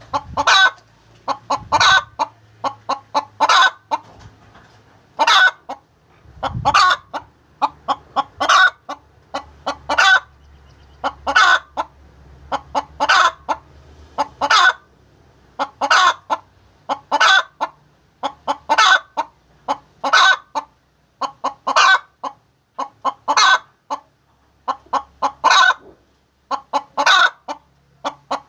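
Hen cackling her egg song: runs of quick clucks, each ending in a longer, louder call, repeating about every second and a half, the call hens give around laying an egg.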